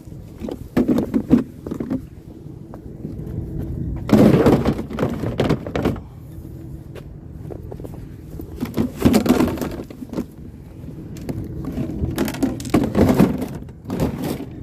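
Junk from a curbside scrap pile being handled and pulled about: several loud bouts of clattering, scraping and knocking, about a second and a half each, with quieter stretches between.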